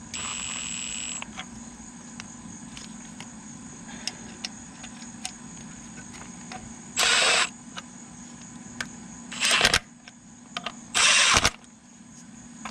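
Milwaukee M12 Fuel brushless cordless impact tool running bolts in. It gives a brief whirring run at the start, then three short, loud bursts a couple of seconds apart. The bolts are being drawn in lightly and gradually so as not to damage the O-ring on the seal housing.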